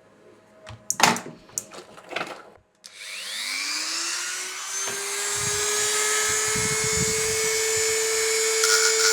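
A few handling clicks, then a Dremel rotary tool fitted with a brush switches on about three seconds in, its whine rising as it spins up and then running steadily at speed. Near the end a rougher scrubbing noise joins as the brush is put to the motor's copper commutator to clean it.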